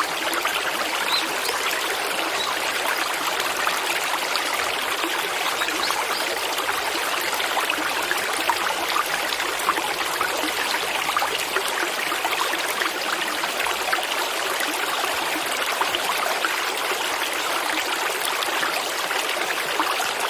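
Water flowing and trickling steadily, with many small bubbling ticks and no change in level.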